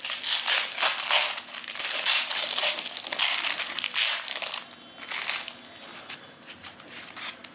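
Packing tape being peeled off a styrofoam block and crumpled in the hands: dense crinkling and crackling for about four seconds, a brief burst again around five seconds in, then only soft handling rustles.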